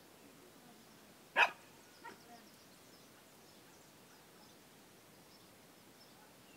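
A wire fox terrier barks once, sharply, about a second and a half in, followed half a second later by a fainter short second sound.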